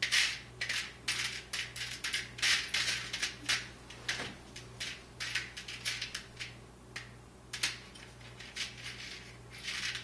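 Irregular clicks and light rattles of small hard parts being handled, as loose screws and laptop pieces are picked up, sorted and set down on a table.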